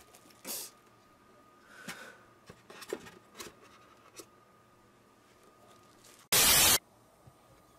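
Packaging being handled: a few light rustles, scrapes and small knocks during the first half. About six seconds in, a sudden burst of loud, even hiss lasts about half a second and stops abruptly.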